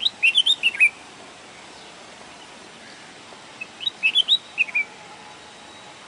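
Red-whiskered bulbul singing: two short phrases of quick, sliding chirped notes, one at the very start and another about four seconds in.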